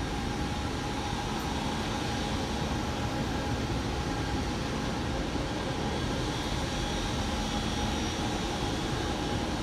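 Fan-wall air handling units running: a steady rush of fan air with a few faint, steady tones through it.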